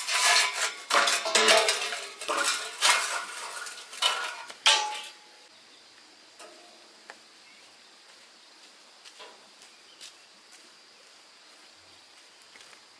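Metal objects clattering and knocking together in a quick run of strikes, some with a short ring, for about five seconds, then only a few faint ticks.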